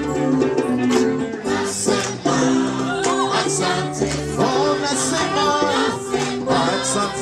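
Gospel choir singing live with a band, accompanied by guitar and hand drum.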